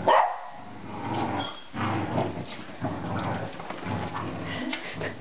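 Two dogs growling in play while they tug and shake a plush toy between them, in rough low stretches of half a second to a second, with one loud sharp bark at the very start.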